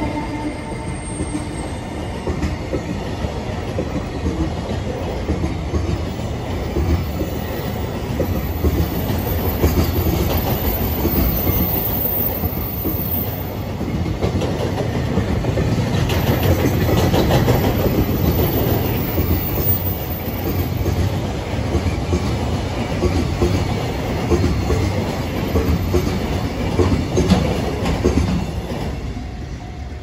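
Freight train of loaded container wagons rolling past at speed: a continuous rumble and clatter of steel wheels on the rails, fading away near the end as the last wagon goes by.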